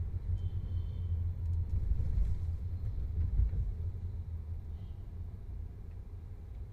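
Low rumble of a Volkswagen Vento on the move, dying away toward the end, with faint short high squeaks about half a second in and again near five seconds.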